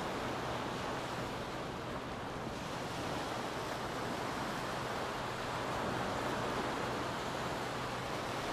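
Small ocean waves breaking and washing up a sandy beach: a steady surf wash that swells gently and eases off.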